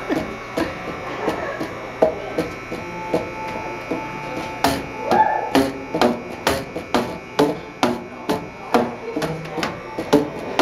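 A flat paddle slapping the open ends of a wall of tuned plastic pipes, each slap a sharp hit followed by a short hollow pitched note. The hits are softer and more spread out at first, then from about four and a half seconds in they come louder, about two a second.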